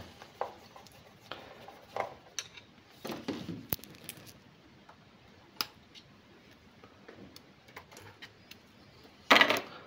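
Scattered small metallic clicks and taps of a screwdriver and hands working at the mounting screws and connectors of the 23 cm module inside an Icom IC-910 transceiver's steel chassis, with a louder rustling scrape near the end.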